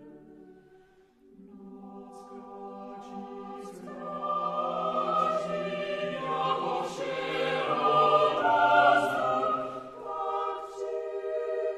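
Unaccompanied mixed choir singing a Czech part-song. After a brief hush about a second in, the voices re-enter and swell to a loud full chord in the middle, then ease back down near the end.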